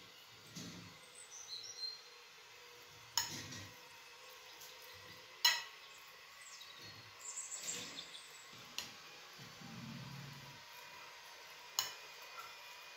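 Metal fork mashing ripe bananas in a ceramic bowl: soft squelching with four sharp clinks of the fork against the bowl. Faint bird chirps now and then.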